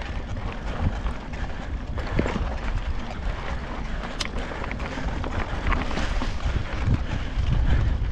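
Mountain bike riding over a gravel forest track, heard through wind buffeting the action camera's microphone: a steady low rumble of wind and tyres with frequent small clicks and rattles from the bike and loose stones.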